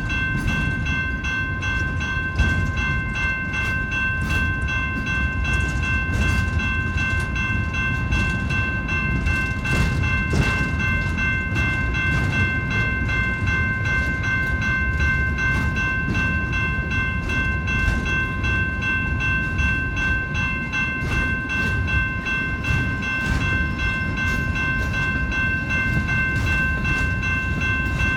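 Freight train cars rolling past: a steady low rumble with scattered clicks of wheels over the rails, and a steady high-pitched ringing tone held throughout.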